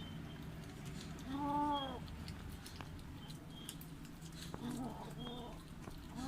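Kitten meowing: one clear meow about a second in, then two fainter, shorter meows near the end.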